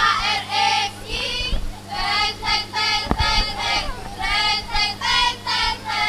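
A child singing in a high voice, in short phrases, over a steady low electrical hum.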